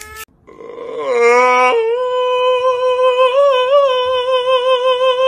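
A voice holding one long high sung note. It slides up into pitch about a second in, then stays steady with slight wavers.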